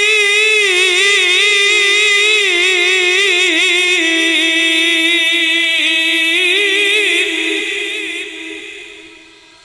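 A male qari's solo Quran recitation (tilawah) into a microphone: one long, held, high phrase full of quick wavering turns and ornaments. The phrase fades out over the last couple of seconds.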